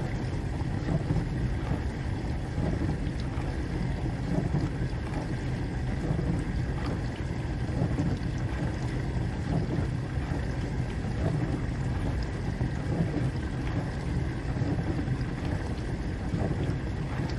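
Dishwasher running mid-cycle: a steady, low churning rush of water and motor hum with no change.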